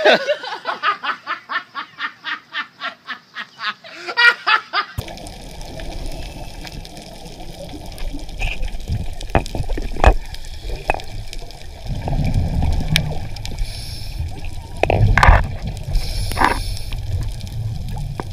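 For about four seconds, a quick, even run of short vocal sounds, about five a second. Then it switches suddenly to underwater audio: a steady low rush of water with louder bubbling bursts and a few sharp clicks.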